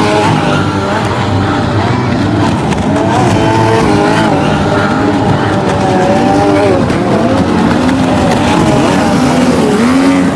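Several racing boat engines running at high speed together, their overlapping whines repeatedly rising and falling in pitch as the boats throttle and pass, over a steady rush of noise.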